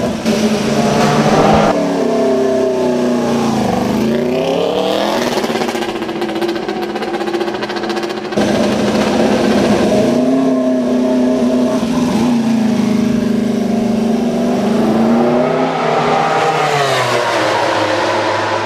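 Aprilia MotoGP racing motorcycle's V4 engine running and being revved, its pitch dropping and climbing again a couple of times, with abrupt jumps where clips are joined.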